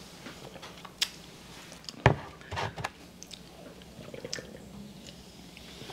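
Someone drinking from an aluminium soda can: a sharp knock about two seconds in, then a few gulps and small wet clicks.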